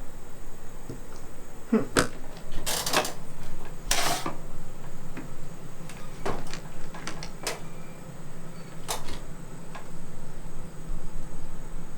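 Sharp clicks and short rattles of an RV keyless entry door lock and handle being worked, over a steady low hum.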